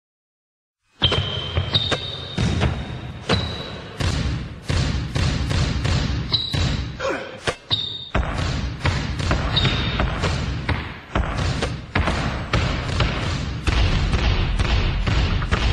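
Basketballs bouncing repeatedly on a hard floor, starting about a second in, with a few short high squeaks.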